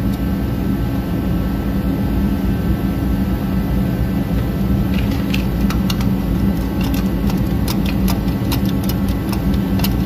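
Ratchet clicks from a Lang brake caliper piston compressor being cranked to press a bushing into an alternator bracket, in short runs from about halfway through. Under them, a steady engine-like drone runs throughout and is the loudest sound.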